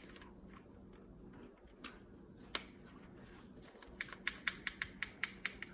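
Faint sharp plastic clicks from an airsoft gun being handled: two single clicks, then a quick run of about ten clicks near the end.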